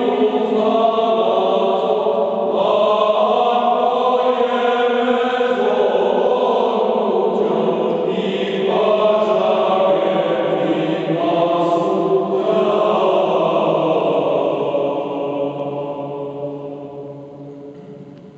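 All-male choir singing an Armenian Christmas hymn a cappella in long sustained lines, closing on a held final chord that dies away over the last few seconds.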